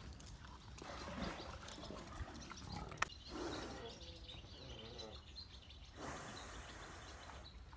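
Water buffalo wallowing in a mud puddle and grunting, with one drawn-out, wavering grunt a little past three seconds in, just after a sharp click. A rushing noise lasts about a second and a half near the end.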